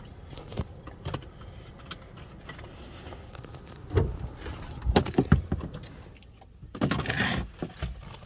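Scattered clicks, knocks and rustling inside a parked car as the occupants handle things and get ready to get out, with a burst of rustling near the end.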